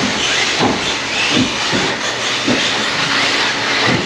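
Electric RC race trucks running on the track: a steady hiss of brushless motors and tyres, with a few dull knocks scattered through it.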